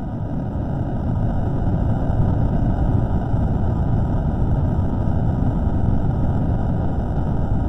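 A steady, dense low rumbling noise with no clear pitch or rhythm, from a microphone recording played slowed down.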